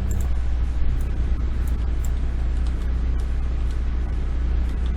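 A steady low hum under a background hiss, with a few faint clicks.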